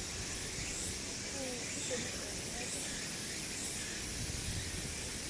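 Steady hissing outdoor background noise with a low rumble underneath, and faint distant voices now and then.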